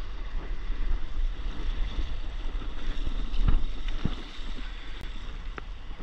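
Wind buffeting the camera microphone over the swish of water running along a stand-up paddleboard as it glides, with two soft knocks about halfway through.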